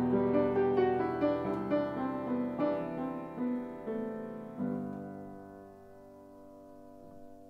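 Piano music: a run of notes ending on a held chord about four and a half seconds in, which slowly fades.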